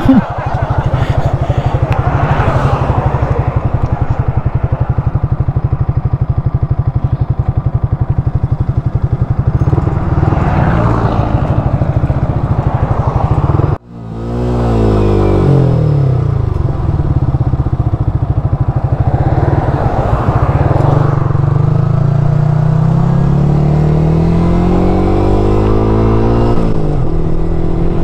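Yamaha R15's single-cylinder four-stroke engine running under way, heard from the rider's seat. It holds a steady pitch, breaks off abruptly about halfway, then dips briefly and climbs gradually in pitch as the bike gathers speed.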